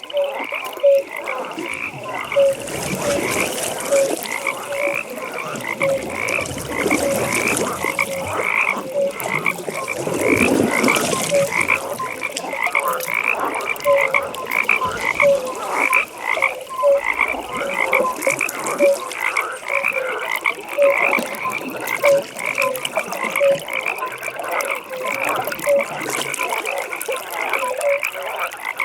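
A chorus of frogs calling at a pond: short high-pitched calls repeating several times a second, overlaid with lower croaks at a slower, regular pace.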